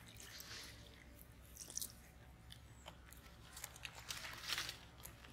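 Faint wet squelching and small splashes as hands squeeze and rub pieces of raw goat lung and liver in water in a steel bowl, washing them.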